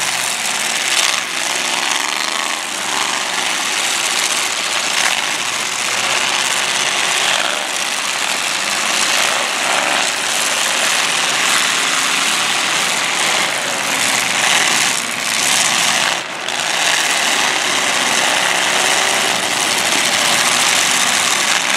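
Several demolition derby cars' engines running and revving hard together, with a few sharp hits along the way. There is a brief lull about 16 seconds in.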